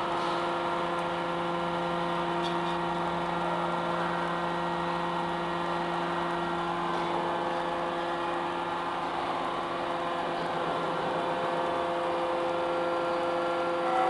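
Hydraulic metal baler's power unit running, its electric motor and hydraulic pump giving a steady hum at one even pitch. The press is between cycles, with a finished bale just pushed out.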